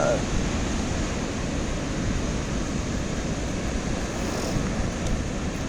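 Ocean surf breaking, a steady noise, with wind buffeting the microphone.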